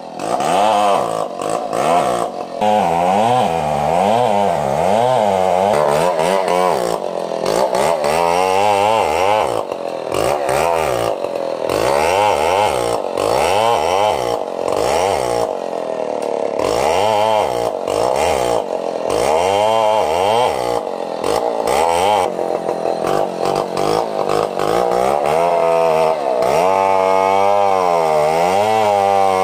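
Large two-stroke chainsaw ripping lengthwise along a big log, running hard with its engine speed rising and falling over and over as it cuts.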